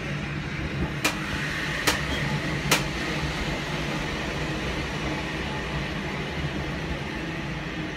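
Fukui Railway 200 series tram running on street track, heard from inside the car: a steady rumble with a low hum. Three sharp clicks come in the first three seconds, a little under a second apart.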